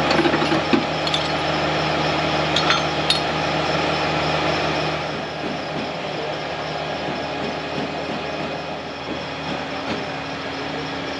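Lifting chains clinking and clanking against steel rigging a few times in the first few seconds, over the steady running of the crane's engine.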